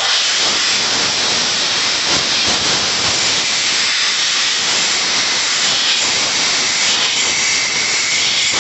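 Stick-welding arc on a Brutus A extractor rod, a steady loud crackling hiss for the whole run, as a nut is welded onto a broken bolt to extract it.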